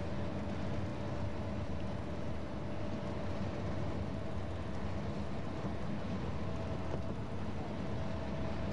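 Steady engine drone and road noise of a road vehicle driving at speed, heard from inside the cabin, with a faint steady whine above it.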